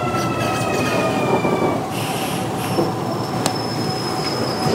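Kintetsu 9020 series train's Mitsubishi IGBT-VVVF inverter whine falling slowly in pitch as the train brakes for the station, fading out about two seconds in. Wheel and track noise continues beneath it; a thin high squeal sets in near the middle, with a sharp click a little later.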